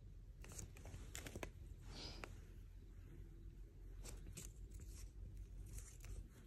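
Faint rustling and scattered soft clicks as a hand strokes a dachshund puppy lying on a fleece blanket, over a low steady hum; the longest rustle comes about two seconds in.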